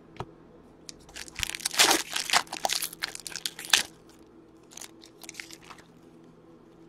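Stack of trading cards being shuffled and flipped by hand: a quick run of papery rasps and snaps, loudest about two to four seconds in, then a few fainter clicks.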